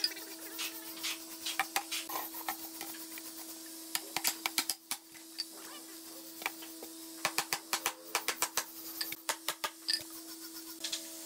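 Wooden cabinet door and frame pieces being handled and set down: scattered clicks and light wooden knocks in clusters, over a steady hum.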